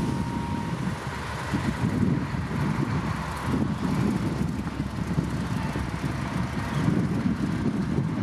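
Heavy diesel earthmoving machinery running, a steady low engine rumble that rises and falls a little.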